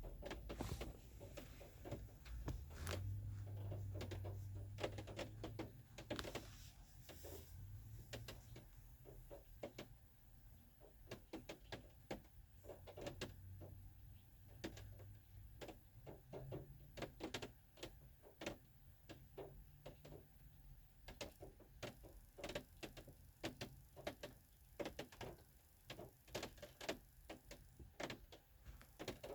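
Rain falling, heard as a faint, irregular scatter of sharp drip taps, over a low rumble.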